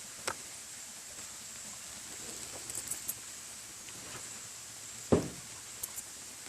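Steady rushing of a nearby creek, with a few faint clicks and one sharper knock about five seconds in.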